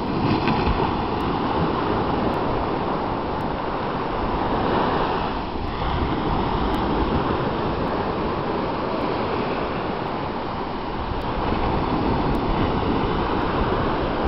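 Small sea waves breaking and washing up a sandy beach in a continuous surf, swelling louder about five seconds in and again near the end.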